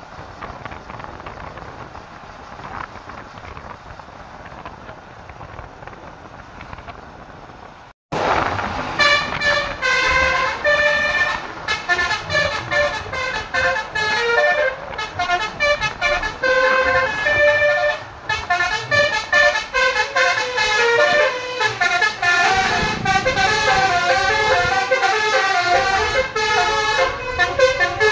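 A low, steady background noise for about eight seconds, then, after a sudden cut, a Basuri multi-trumpet bus horn ("telolet") loudly plays a quick melody of stepped notes that runs on without a break.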